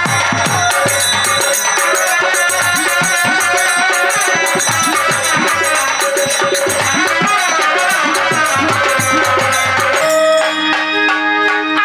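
Live Bengali Baul folk ensemble playing: harmonium and trumpet over fast hand-drum strokes. About ten seconds in the drumming stops and held notes carry on.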